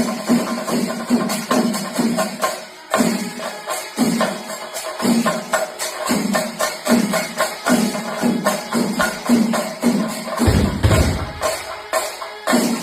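Chenda drums beaten with sticks in a fast, dense, even rhythm, loud throughout, with a low rumble lasting about a second near the end.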